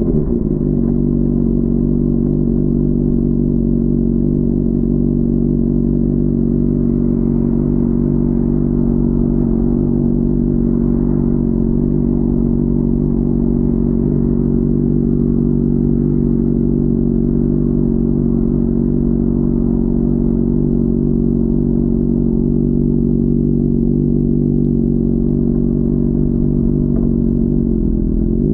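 Honda CBR600RR's inline-four engine running at steady revs while cruising, its pitch holding level throughout, heard muffled from inside a backpack.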